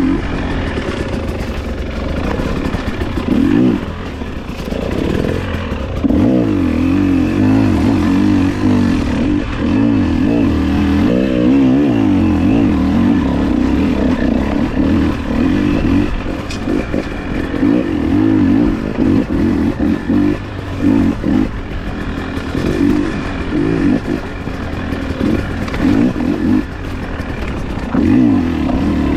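Enduro dirt bike engine running and revving up and down as it rides a rough trail, with clattering from the bike over the ground.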